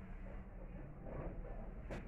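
Faint, steady low hum with light handling noises and one sharp click near the end, as someone searches among objects for a tool off-camera.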